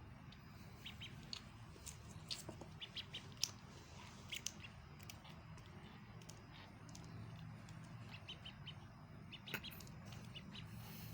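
Faint duckling peeping: short high-pitched peeps, scattered singly and in small clusters, over a faint low background hum.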